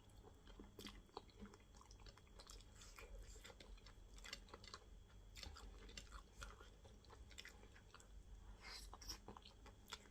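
Faint, close-miked chewing and lip smacking as a person eats sticky plantain fufu with okra stew, heard as a scatter of small, irregular wet clicks.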